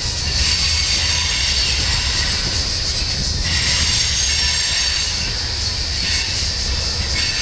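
Freight train of tank cars rolling over a railroad bridge: a steady low rumble of the cars with a continuous high-pitched squeal of wheels on the rails.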